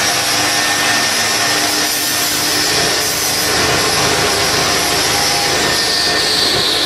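Electric motor of a motor-driven generator rig running steadily, a loud whirring machine noise with a high whine that drops in pitch near the end.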